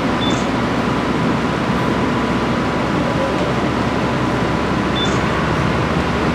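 Steady, even room noise hiss and hum with no speech, a faint steady tone running through it, and two tiny high chirps, one just after the start and one about five seconds in.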